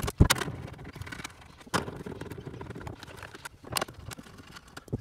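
Hand ratchet with a deep 8 mm socket undoing a tail-light mounting nut, giving scattered, irregular sharp clicks.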